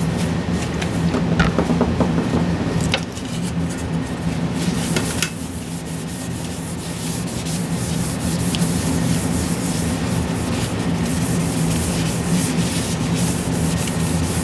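Scratchy rubbing strokes of a metal graphics-card back plate being wiped clean with alcohol, heaviest in the last few seconds, with a few sharp clicks in the first half. A steady low hum runs underneath.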